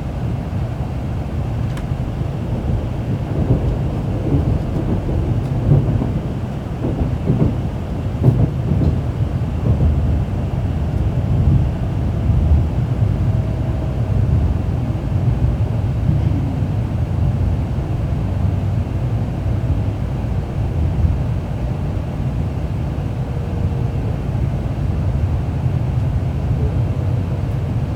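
Steady low rumble of a Shinkansen train, with a few faint brief tones in the middle.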